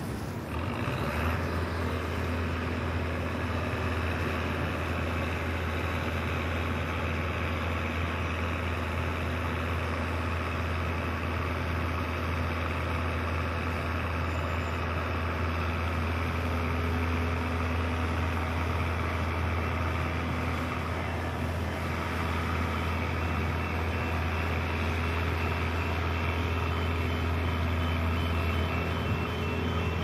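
A vehicle engine running steadily as a constant low rumble, with traffic noise over it.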